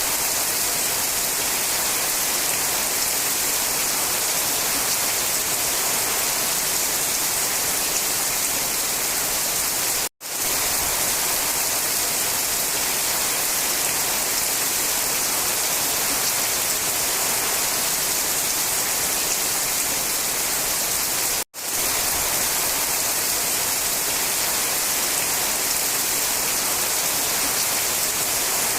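Steady rain, a dense even hiss with no other events, cut off for an instant twice, about ten and twenty-one seconds in.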